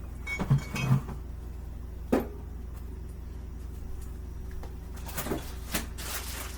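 Kitchen handling noises from measuring cheese: a few sharp knocks of containers or utensils in the first couple of seconds, then brief rustling or scraping bursts near the end, over a steady low hum.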